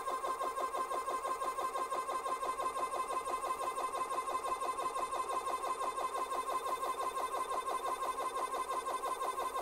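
Umarex ReadyAir portable PCP compressor running steadily, a fast even pulsing with a constant whine, as it pumps air into an air rifle through a fill probe and extension hose that the crew suspect of leaking.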